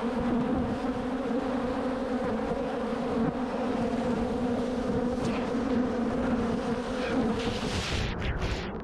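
Loud, steady buzzing of a large mass of defensive honey bees swarming around the camera and over a beekeeper's suit. Near the end the hum fades and a rushing noise takes over.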